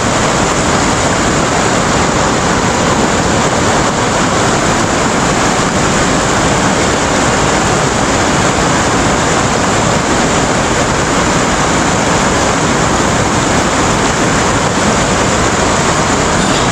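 A fast, shallow river rushing over rocks, a loud, steady sound of running water.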